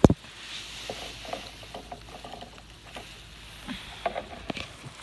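Overhead frost-protection irrigation spray hissing and pattering on strawberry row covers, with scattered small ticks of drops. A single sharp knock right at the start from the phone being handled.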